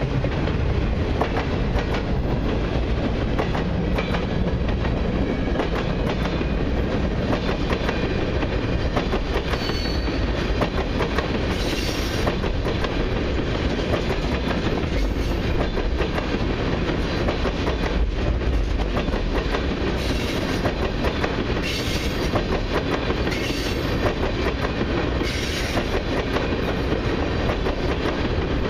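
Freight train of tank cars and hoppers rolling steadily past at close range, the steel wheels clicking over rail joints in a continuous clickety-clack over a low rumble. Brief high-pitched wheel squeals break in now and then, mostly in the second half.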